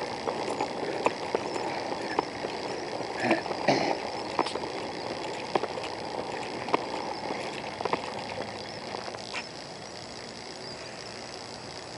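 Footsteps on a pavement walkway at a steady walking pace, about one step every half second or so, over a steady outdoor background hiss; the steps fade out over the last few seconds.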